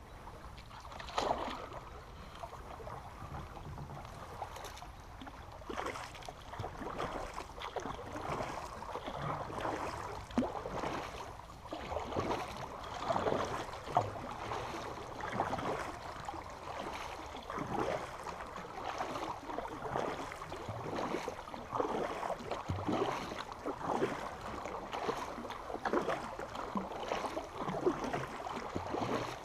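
Kayak paddle strokes splashing in fast-flowing, rain-swollen creek water, irregular splashes about once or twice a second over steady water noise.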